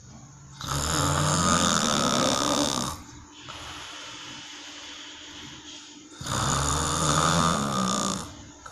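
A person snoring: two long, loud snores of about two seconds each, some three seconds apart, with quieter breathing between them.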